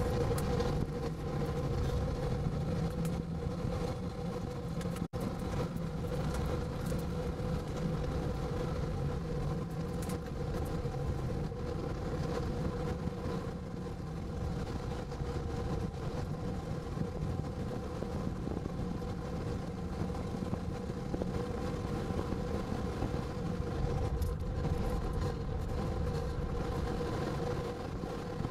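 Steady drone of a moving vehicle, road and engine noise with a constant hum. The sound cuts out for an instant about five seconds in.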